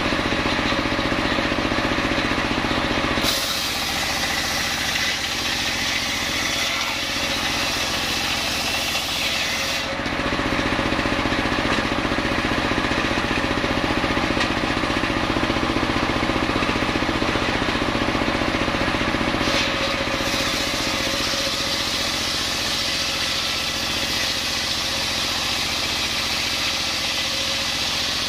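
Homemade engine-driven circular table saw running steadily, ripping coconut-palm logs lengthwise. A harsh, hissing cutting sound rides over the engine from about 3 to 10 seconds in and again from about 20 seconds in to the end.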